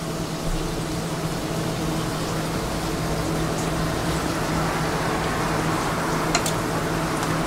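Steady hiss with a low hum from the shop kitchen's equipment, with a couple of light clicks near the end as metal tongs lay lettuce on the wrap.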